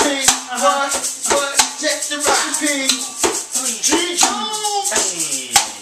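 Hip-hop music: a man's voice raps over a steady beat of sharp knocks about three a second, with a shaker-like rattle on top.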